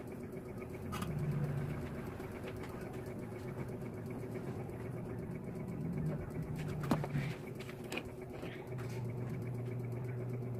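A low steady hum that comes on and cuts off three times, with a few light clicks between.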